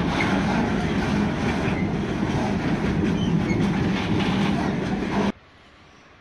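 Freight train of covered goods wagons rolling past, a steady loud rumble of wheels on rails. It cuts off abruptly about five seconds in, leaving only a faint background.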